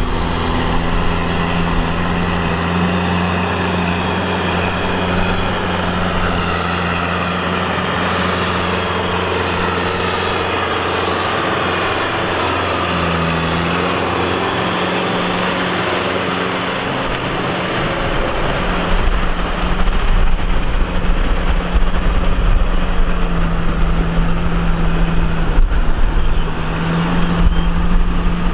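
Kubota M6040 tractor's diesel engine running steadily while working, getting louder with more low rumble about two-thirds of the way through.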